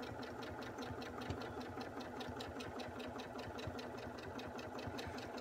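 Janome Memory Craft home sewing machine stitching steadily, its motor humming under a rapid, even needle rhythm, as a quilt is moved along a ruler in free-motion ruler work.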